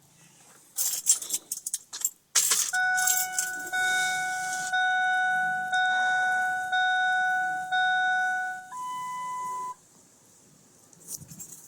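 Keys jangling as they go into a 2001 Ford F-350's ignition, then the dashboard warning chime sounding as the key is turned on: a steady tone repeating about once a second for some six seconds, ending with one higher tone. No engine cranking is heard.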